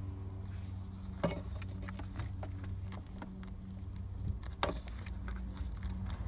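Light clicks and knocks from the electrical switch on the back of a Chrysler Crossfire ignition lock being worked loose by hand, a stiff part that comes off only slowly. There are two sharper knocks, one about a second in and one past four seconds, over a steady low hum.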